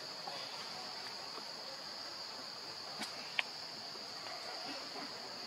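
Steady high-pitched drone of insects, with a faint click about three seconds in and a short high chirp just after it.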